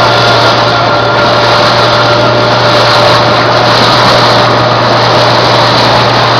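Engine of a rigid inflatable boat running steadily at cruising speed, with a constant low hum and a faint steady whine, mixed with rushing water along the hull.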